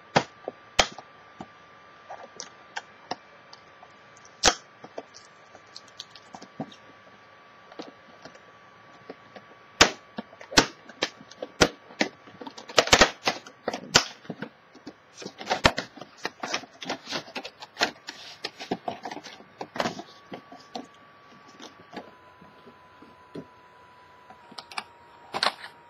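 Clear plastic blister packaging being handled and pried open: irregular sharp crackles and snaps of stiff plastic, coming thickest in the middle of the stretch.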